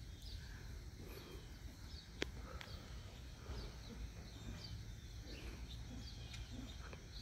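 Faint outdoor ambience: scattered short bird chirps over a low steady rumble, with a single sharp click a little over two seconds in.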